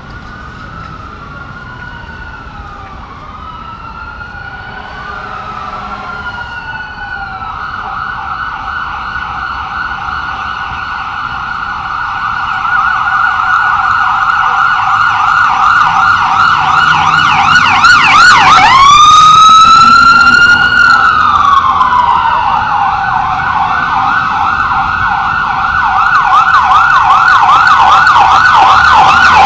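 Emergency vehicle sirens approaching and growing steadily louder. A slow wail, with two sirens overlapping at first, changes to a fast yelp. About two-thirds of the way in comes one long rise, held and then falling, before the fast yelp resumes.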